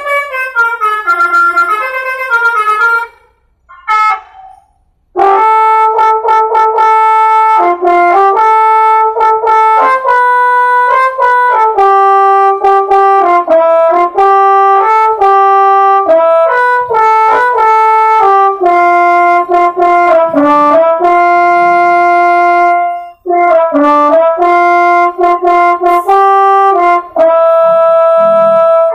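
Bus 'telolet' multi-tone air horn playing a tune: repeated falling glides at first, then after a short break, a long run of loud held notes that step up and down, several tones sounding together.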